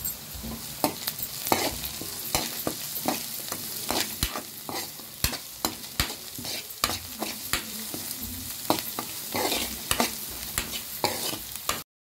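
Metal spatula scraping and knocking against a frying pan as shredded cabbage, onion and green chilli are stir-fried on high flame, over a steady sizzle. Many sharp scrapes and taps come irregularly, and the sound cuts off abruptly near the end.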